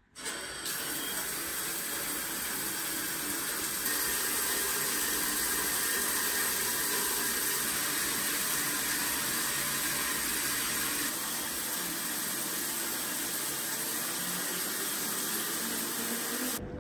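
Overhead rain shower head running, water spraying steadily onto the floor of a tiled shower. It gets a little louder about four seconds in and stops abruptly near the end.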